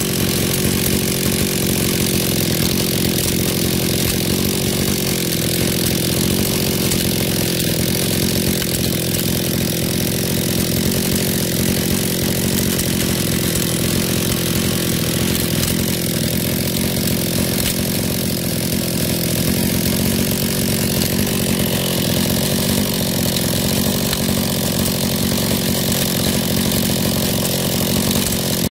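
Small air-cooled brush cutter engine running at a steady speed, its exposed flywheel spinning; it cuts off suddenly at the end.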